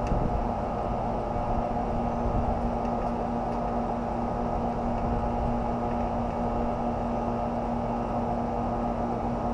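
Steady mechanical hum with a constant low tone, even and unchanging throughout.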